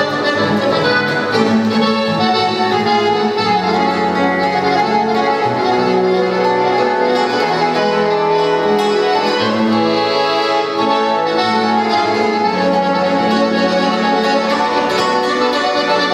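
Live instrumental Latin American music played by a trio, with sustained melody notes over a moving bass line, continuous and without a break.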